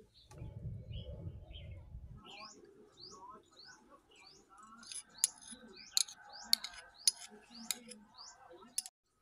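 Small birds chirping over and over in short rising chirps, over a low rumble that stops about two seconds in. From about five seconds in, half a dozen sharp clinks of a spoon against a ceramic bowl as sauces are measured into it.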